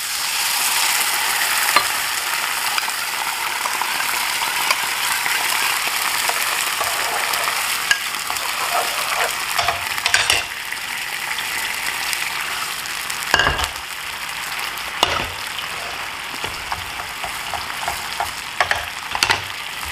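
Ketchup sauce and then water sizzling in a hot nonstick frying pan of diced vegetables, a steady hiss that eases a little after about ten seconds. A few sharp knocks of a bowl and spatula against the pan come through it.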